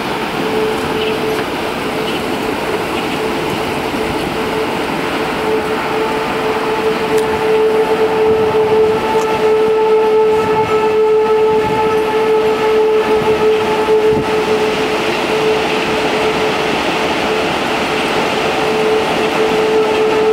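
Wind rushing through the trees ahead of a storm, under a steady held tone that gains higher overtones about six seconds in.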